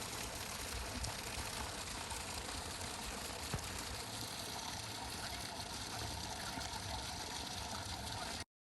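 Steady rushing background noise with no clear events, cutting off suddenly near the end.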